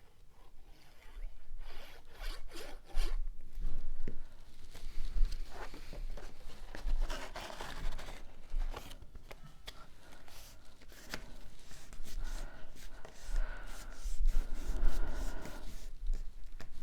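Cardstock pieces being handled and pressed together: paper rustling and rubbing, sliding on the work surface, with scattered small taps and clicks.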